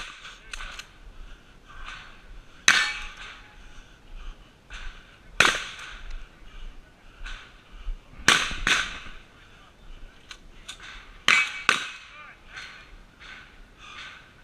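Gunshots from competitors firing on the range: sharp single shots roughly every three seconds, two of them followed quickly by a second shot, with fainter shots in between.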